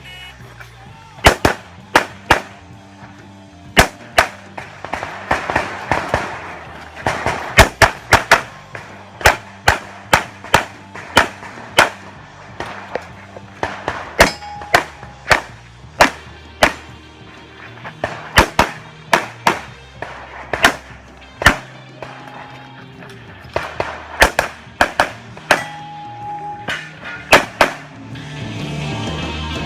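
Handgun fired rapidly through a USPSA Production-division stage: dozens of sharp shots, mostly in quick pairs and short strings, broken by brief pauses. The shooting stops a couple of seconds before the end.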